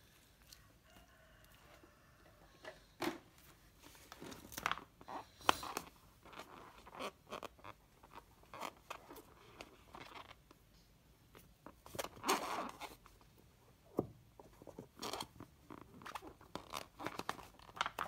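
Latex balloons handled and rubbed by hands, with scissors snipping at a balloon's tied neck: an irregular string of short rubbery scrapes, crinkles and clicks.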